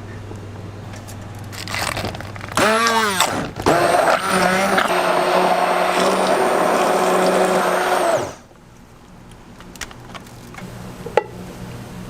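A small electric motor, like a blender's, runs for about five and a half seconds. Its pitch sweeps up and down as it starts, then holds steady before it cuts off suddenly.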